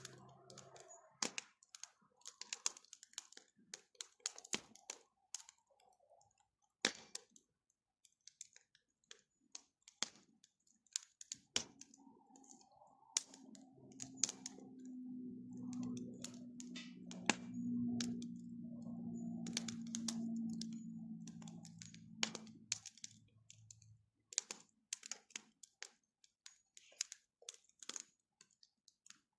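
Wood bonfire crackling and popping with irregular sharp snaps. Midway a low steady hum swells up and fades away for about ten seconds.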